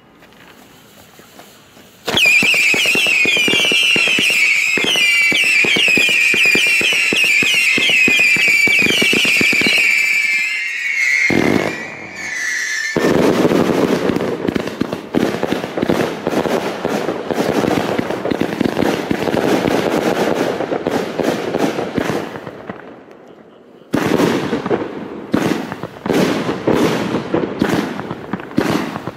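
A firework cake (a 259-shot, 30 mm compound battery) firing. From about two seconds in, a chorus of whistles wavering in pitch plays over crackling for about ten seconds. A dense run of crackling bursts follows, then a short lull, and near the end rapid separate shots.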